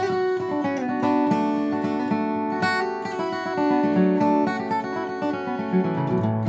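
Old Washburn acoustic guitar, capoed and flatpicked with a pick, playing a bluegrass melody in quick picked notes over bass notes, with a run on the bass strings near the end.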